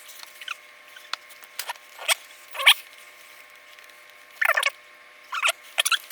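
Small plastic building-set pieces handled and clicked together, in short separate bursts of rustling and clicking, with a sharp click a little after one second.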